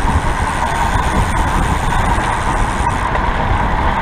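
Wind rushing over the microphone of a handlebar-mounted camera on a road bike riding fast in a pack, mixed with tyre and road noise: a loud, steady rush with a heavy low rumble.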